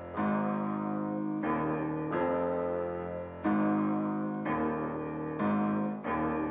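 Background music: a keyboard instrument playing held chords that change roughly once a second.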